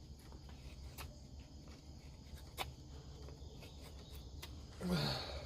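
Faint steady chirring of crickets, with a few light clicks scattered through it and a short vocal sound near the end.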